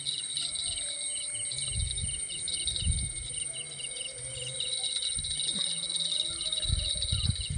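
Crickets and other insects calling steadily: a high continuous whine with short chirps repeated several times a second. A few low thumps sound over it.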